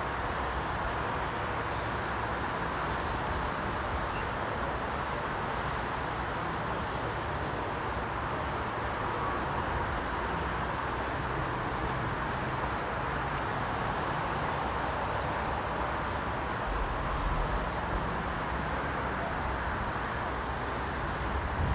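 Steady outdoor city street noise, a continuous even wash with a low rumble underneath that grows louder a few seconds before the end.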